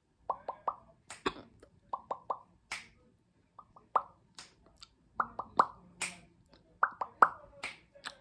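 A person hiccuping repeatedly: groups of three short pops, each followed by a sharp airy gasp, recurring about every one and a half seconds.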